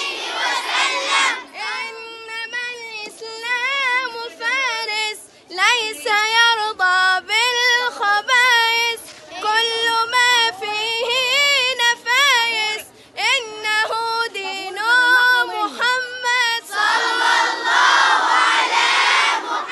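A young girl's solo voice chanting Quran recitation in long, wavering, ornamented phrases separated by short pauses. A crowd cheers at the very start and again from near the end.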